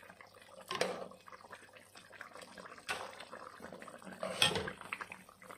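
A utensil scraping and knocking in a stone-coated cooking pot as chicken pieces are lifted out of thick tomato sauce, with wet sloshing of the sauce. There are three short bursts, the loudest near the end.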